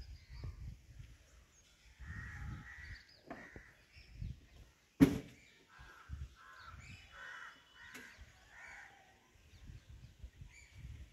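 Crows cawing repeatedly, with a run of calls in the second half. A single sharp knock about five seconds in is the loudest sound.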